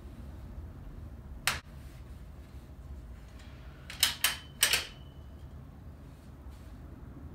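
Metal ironing board being unfolded and set up: one sharp click about a second and a half in, then three quick metal clacks about four seconds in, the last leaving a brief ring. A low steady room hum underneath.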